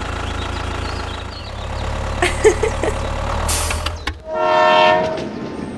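A steady low hum, then a horn sounds once for about a second near the end.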